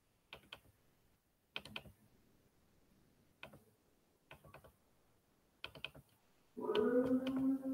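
Computer keyboard typing in short bursts of a few keystrokes, with gaps between them. About a second before the end, a steady sound with several held pitches, like music, comes in and carries on.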